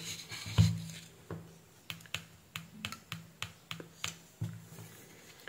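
A series of sharp, irregular clicks, about a dozen, from the buttons of a handheld digital multimeter being pressed to switch it into diode mode.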